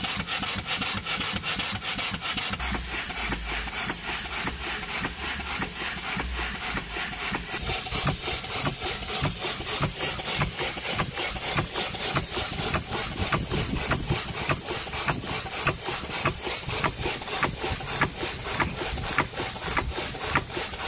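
Small steam engine driving an Edwards-type wet air pump, running steadily with a regular knocking beat of a few strokes a second from its rods, valves and pump piston. The beats are sharper and hissier for the first couple of seconds.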